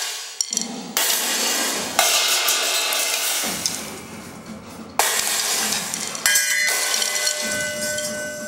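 Cymbals struck several times, each crash washing on until it is cut off sharply by the next; in the last few seconds a struck cymbal rings on with steady tones.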